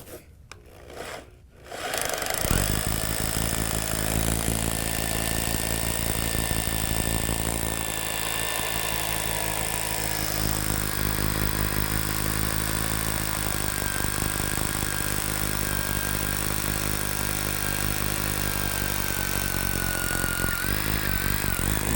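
Hammer drill boring into concrete for an anchor hole: a loud, steady hammering rattle with a high motor whine, starting about two seconds in and stopping just before the end.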